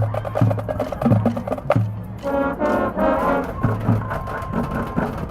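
High school marching band playing: brass section carrying chords over repeated low bass notes and percussion, loud and rhythmic.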